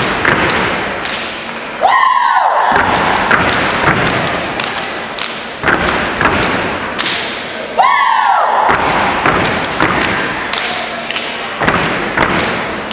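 Step team stomping in unison in boots, a run of sharp stomps and strikes. A high rising sound cuts in twice, about two seconds in and about eight seconds in.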